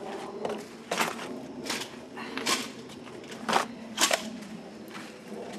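Boxes and bags being handled and set down, about five sharp knocks and crackles spread over a few seconds, with a faint steady background.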